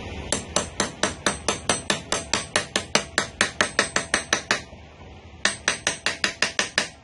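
Rapid, even hammer blows, about four or five a second: a run of around nineteen strikes, a pause of about a second, then a shorter run of about eight.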